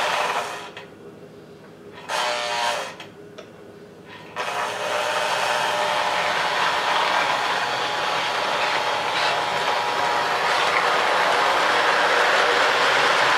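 Postwar Lionel O gauge Santa Fe F3 diesel set running on three-rail track: a steady mechanical whir of the motors and gears with the running noise of the wheels on the rails. The sound drops away sharply twice in the first few seconds, each time for about a second.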